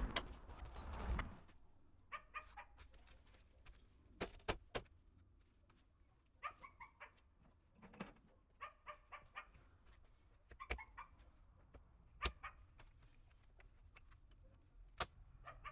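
Scattered knocks and clicks of a small wooden coffee table being put back together, a few sharp single strikes among them. Short runs of quick repeated animal calls sound faintly in the background.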